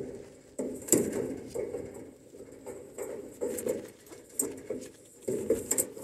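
Mallard ducks calling with soft, low quacks in short irregular bursts, mixed with light scratchy crackles like feet on dry leaves.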